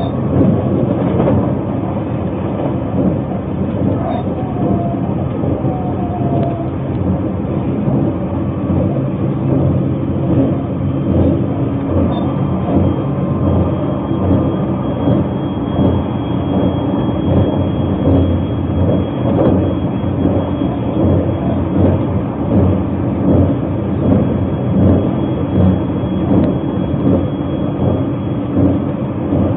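Narita Express electric train running at speed, heard from inside the passenger car: a steady rumble of wheels on rail that swells and fades in a regular rhythm. A faint, high, steady whine joins about twelve seconds in.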